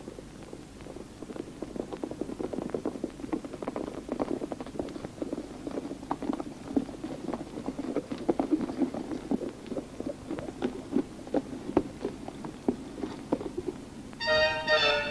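Hoofbeats of several horses coming closer, a quick, uneven clatter that grows louder. Accordion music starts near the end.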